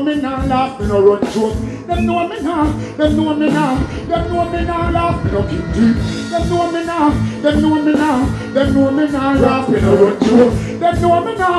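Live dancehall-reggae music at full volume through a stage sound system: a male deejay singing and chanting into a microphone over a backing track with a steady heavy beat.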